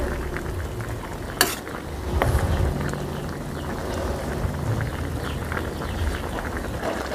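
Coconut-milk vegetable soup bubbling at the boil in a large metal wok while a metal ladle stirs it, with one sharp clink of the ladle against the wok about a second and a half in and a few lighter scrapes.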